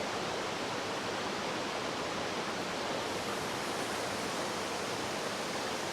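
Steady rushing of a waterfall, an even roar of falling water.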